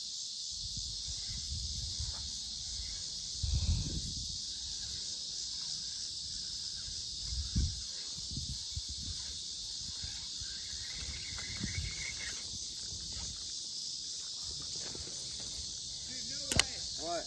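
Steady high chorus of insects buzzing in the summer brush. A few low thumps break in, with a sharp click and a short run of rough calls near the end.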